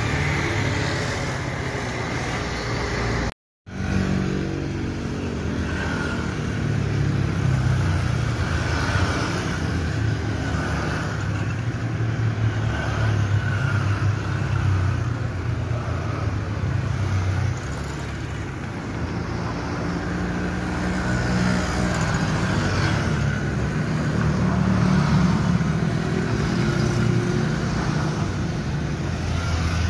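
Steady low rumble of airliner jet engines at low taxi power, mixed with airport ground vehicles. The sound drops out for a moment about three and a half seconds in.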